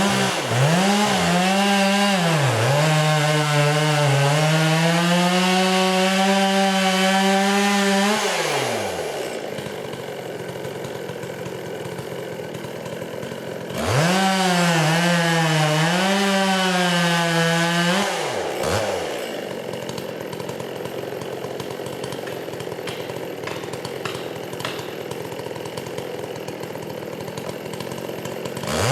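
Two-stroke chainsaw revving and cutting into wood, its pitch sagging and wavering under load. About 9 seconds in it drops back to idle, makes a second cut from about 14 to 18 seconds, then idles again before revving up near the end.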